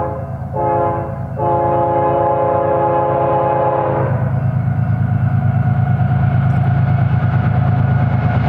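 BNSF diesel freight train's multi-note air horn sounding a short blast, then a long one that cuts off about four seconds in: the short-long close of a grade-crossing horn signal. The heavy rumble of several diesel locomotives under power then grows as the lead units draw near and pass.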